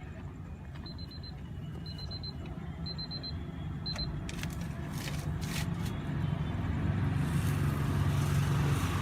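Quick high electronic beeps in groups of about four over a low steady hum that slowly grows louder, followed by a few clicks.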